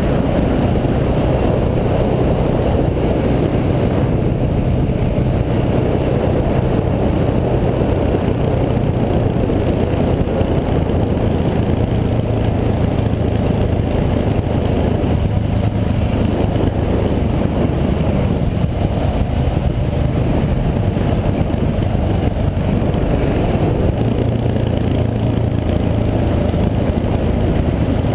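Dirt bike engine running steadily under way, its pitch shifting a little as the throttle changes.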